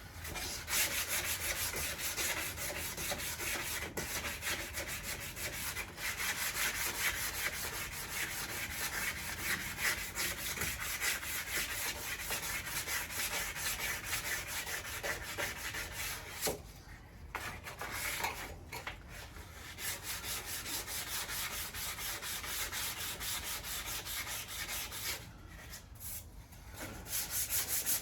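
Sanding on the car's steel bodywork around the door jamb: a steady rough scraping that stops briefly twice, once past the middle and once near the end.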